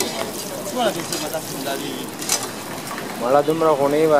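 Paratha frying in hot fat on a large flat iron griddle, sizzling steadily. A short sharp click comes a little past two seconds in, and a man's voice is heard near the end.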